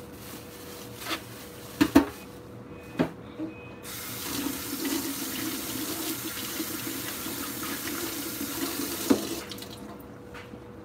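A few sharp knocks, then a kitchen tap running into a sink for about six seconds, shut off near the end.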